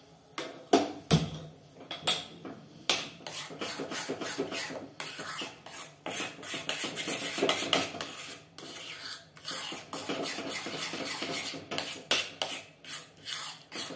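Steel spoon stirring and scraping a thick milk-powder batter around a black kadai: a quick, uneven run of scrapes with sharper clinks of metal on the pan, the mixture being kept moving over low heat so it doesn't lump.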